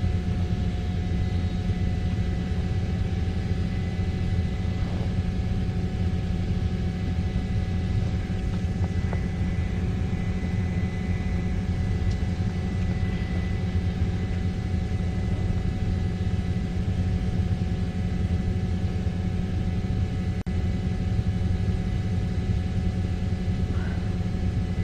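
Helicopter engine and rotor running steadily: a continuous low rumble with constant whining tones, broken only by a momentary dropout about twenty seconds in.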